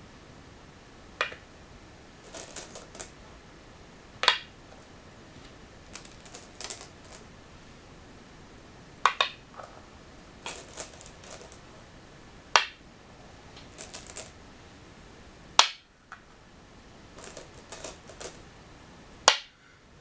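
Go stones snapped down one at a time onto a wooden go board: six sharp clicks a few seconds apart. Between them, softer clattering of stones in the bowl as the next stone is picked up.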